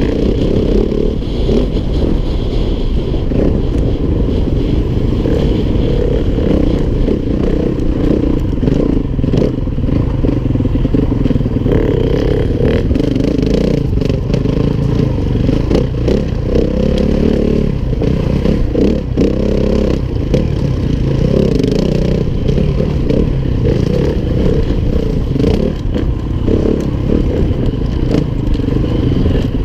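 Four-stroke enduro dirt bike engine running as the bike is ridden along a rough dirt trail. The engine note swells and dips as the throttle changes, with some clattering from the bike over the rough ground.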